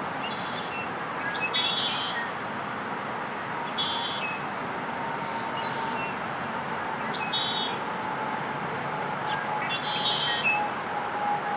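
Male red-winged blackbird singing: short, high, buzzy song phrases repeated about four times, every two to three seconds, over a steady background hiss.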